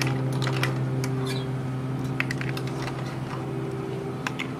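A metal spoon clicking and clinking against an aluminium pot and hard snail shells as boiled snails are scooped out, with a steady low hum underneath that stops near the end.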